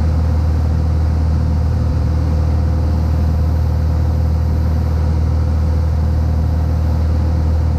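Cessna 182's piston engine and propeller droning steadily in cruise flight, heard from inside the cabin.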